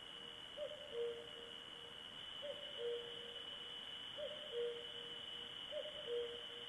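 An owl hooting in repeated two-note phrases, a short higher note followed by a longer, slightly lower one, four times about every second and a half to two seconds. A steady high-pitched whine runs underneath.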